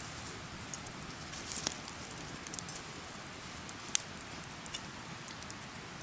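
Wood campfire crackling: scattered sharp pops over a steady soft hiss, the sharpest pop about four seconds in.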